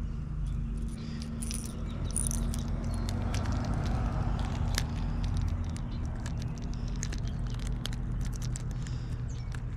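Small metallic clicks and jingles, irregular and scattered, as a popper lure's treble hooks and split rings knock together while being worked out of a largemouth bass's mouth by hand. A steady low hum runs underneath.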